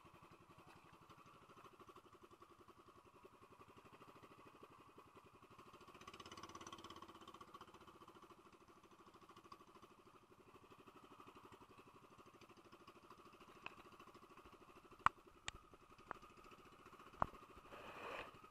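Faint, steady running of an outrigger fishing boat's engine. A few sharp clicks come near the end.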